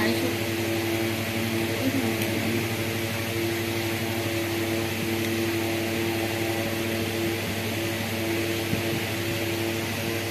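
Steady motor hum and hiss, an unbroken drone with a constant low tone, like an electric fan running.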